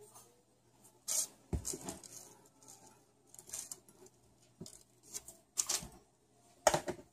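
Hands shaping molasses cookie dough: a string of short rustles, scrapes and light taps as a dough ball is rolled in a bowl of sugar and set on a parchment-lined cookie sheet, the loudest near the end.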